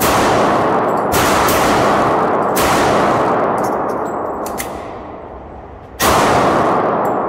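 Glock 32 Gen 4 pistol firing .40 S&W through a factory Glock 23 barrel in place of its .357 SIG barrel: four shots, three about a second apart, then a pause of about three seconds before the last, each with a long echo off the indoor range's walls. A couple of light ticks fall in the pause. The converted pistol is cycling and feeding normally.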